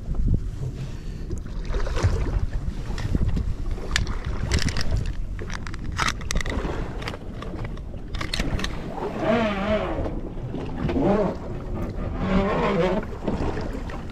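Wind buffeting the microphone over a steady low rumble aboard a fishing boat at sea, with small clicks of line and tackle being handled. From about two-thirds of the way in, a few wavering, voice-like cries sound in the background.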